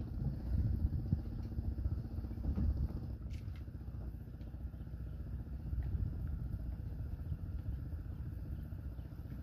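Small wooden fishing boat's inboard engine idling: a steady low rumble.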